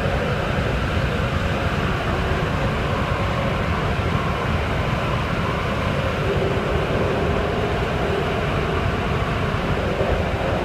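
Beijing Subway Line 6 train running steadily through a tunnel, heard from inside the front car: an even rumble and rush of wheels on rail, with a faint hum that wavers in pitch.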